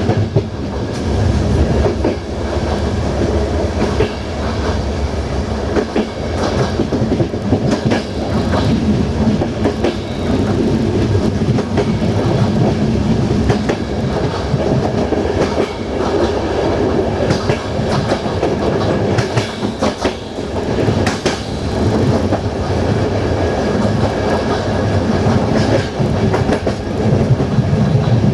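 Passenger coach of a moving train, heard from its rear end: a steady rumble of wheels on the rails, with repeated clicks as the wheels pass over rail joints.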